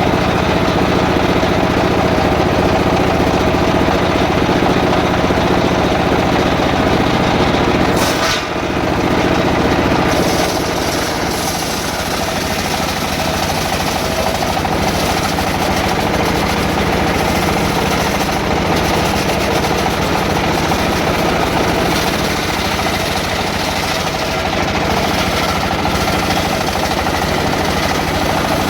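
Two-stroke petrol saw running under load as it cuts through jackfruit wood, a loud continuous engine and cutting noise with a brief drop about eight seconds in.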